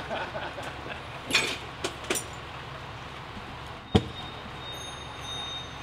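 A few light knocks and clacks, then one sharp knock about four seconds in, followed by a faint steady high tone.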